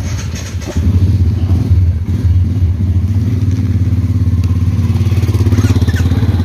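Motorcycle engine running with a steady low beat while the bike is ridden slowly over a rough dirt track, getting louder about a second in.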